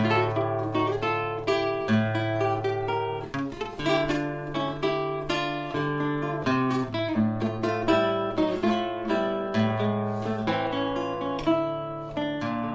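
Background music: a solo acoustic guitar picking a quick melody over held bass notes.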